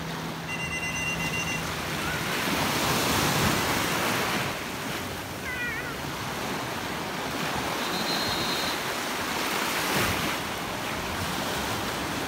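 Sea waves washing over a shallow reef shore: a steady rush of surf that swells and eases, loudest a few seconds in. A few faint short high chirps sound over it.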